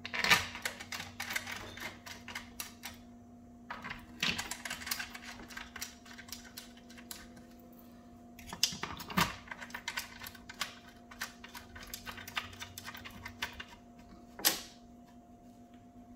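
A ratchet wrench clicking in quick runs, three bursts of a few seconds each, as the bolts holding the volute onto a booster pump are run down. A single knock comes near the end.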